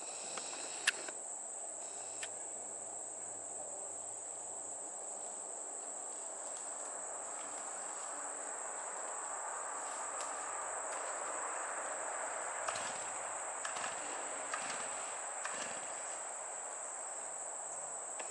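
Steady high-pitched insect trilling, with a faint low rumble underneath that swells a little midway and a few faint ticks.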